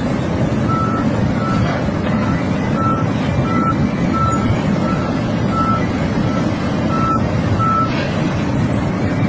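A reversing alarm beeping about eleven times at a steady one-pitch rate of roughly one and a half beeps a second, then stopping near the end. Underneath it the engine of heavy unloading machinery runs steadily and loudly.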